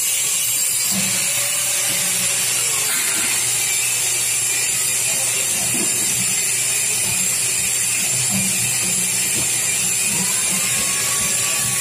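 Stainless steel sheet metal being handled at a workbench, with scattered light clanks and rattles, over a steady high hiss of workshop background noise.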